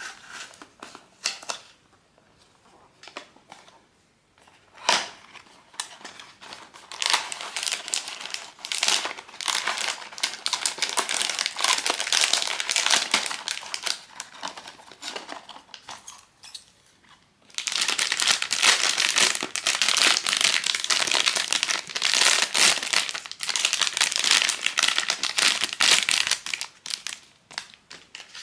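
Crinkly blind-box packaging handled and unwrapped by hand: a few scattered rustles and clicks, then long stretches of dense crinkling and tearing. There is a short pause about two-thirds of the way through, and the crinkling comes back louder.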